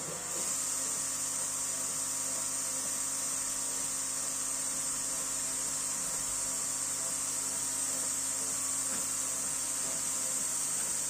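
Sculpfun diode laser engraver running a cut in plywood: a steady, high-pitched whine and hiss from the machine comes up about half a second in, with a faint steady hum beneath.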